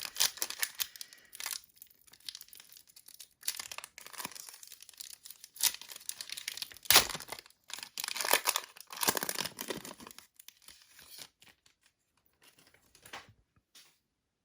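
Plastic packaging crinkling and tearing as trading cards are unwrapped and handled, in dense rustling bursts that thin out to a few small sounds near the end.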